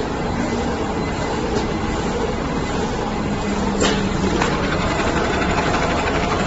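Bag-making machine running steadily, a dense mechanical hum with a low steady tone, and one sharp click about four seconds in.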